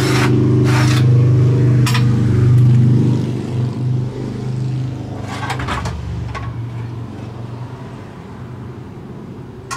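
A motor vehicle's engine running with a steady low hum, loud at first and then fading gradually through the second half. A few short clanks sound over it.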